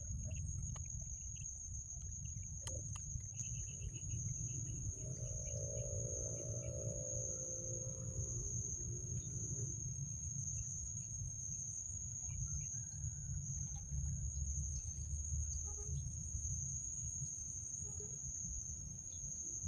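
Outdoor insect drone, a steady high-pitched note, over a constant low rumble. Scattered faint bird chirps and a few light knocks come through. About five seconds in, a faint pitched hum lasts several seconds.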